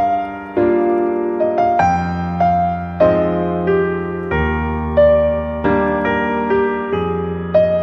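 Background instrumental music: pitched notes and chords, each starting sharply and then ringing away, over held low notes.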